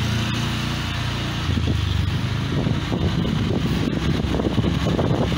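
Motorcycle engine running steadily at low road speed, a low hum, with wind and road noise over it.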